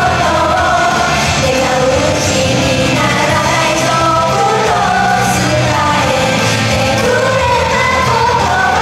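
Upbeat pop song performed live: the group singing over a loud backing track with a steady beat and bass, played through the venue's PA.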